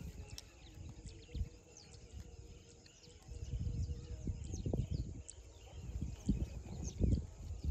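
Small birds chirping, with many short calls scattered throughout. Under them are irregular low thuds and rumbling that grow stronger after about three seconds.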